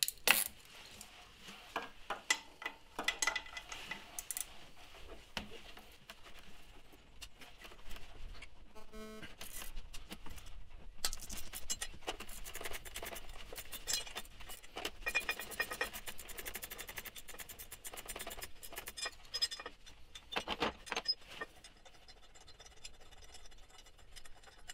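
Ratchet wrench with a low-profile socket adapter clicking in spells as a bolt is undone, with metallic clinks of the socket and tools between. The clicking comes fastest a little past the middle.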